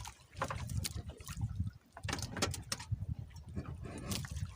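Water splashing and dripping, with a low uneven rumble that comes and goes and scattered small clicks and knocks.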